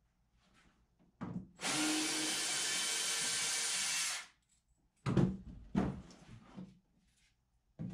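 Cordless drill running steadily for about two and a half seconds, backing out a screw to free the canoe's wooden outwale, followed by several knocks as the drill is set down on the hull and the gunwale is worked loose.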